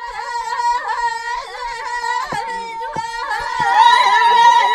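Women singing together in a small room, an Amazigh wedding song held on long, wavering notes, with a few sharp beats under the voices and the singing loudest near the end.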